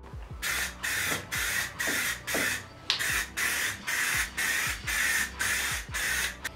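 Aerosol spray can of black paint, worked with a trigger grip, spraying in a quick run of short hissing bursts, about two a second, as a coat goes onto a car bumper.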